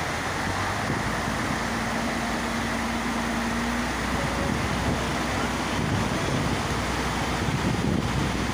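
A dense mass of small sardines (tarli) thrashing at the surface inside a seine net, making a steady hissing, fizzing splash, with wind on the microphone.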